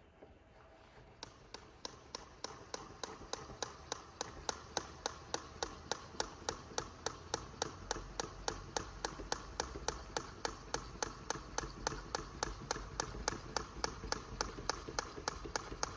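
Rapid, evenly spaced knocks, about three and a half a second, starting about a second in, from a model being shaken to imitate an earthquake in a ground-liquefaction demonstration. A low rumble builds up under the knocks from about halfway.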